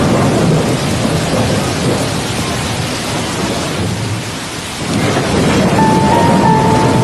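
Heavy rain pouring with deep rolling thunder; the rumble eases about four seconds in and swells again a second later. Near the end, faint held tones come in over the rain.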